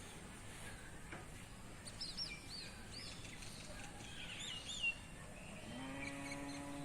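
Small birds chirping in quick, arched notes over a steady outdoor background. Near the end a long, steady, held call begins, from a voice or an animal.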